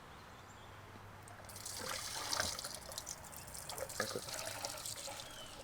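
Gasoline being poured from a can into a pit bike's empty fuel tank: a steady trickling pour that starts about a second and a half in, with a few faint clicks and knocks.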